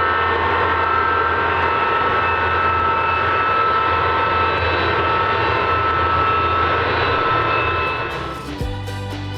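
Aircraft engine running steadily: a loud rushing noise with a high whine in it, easing down near the end as music comes in.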